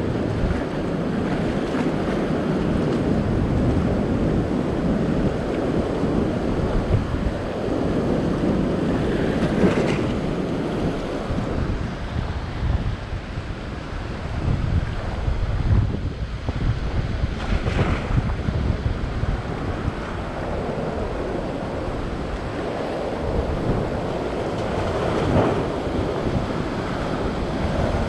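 Ocean surf washing and breaking over a rock platform, with wind buffeting the microphone in a steady low rumble; the wash swells louder several times as waves come in.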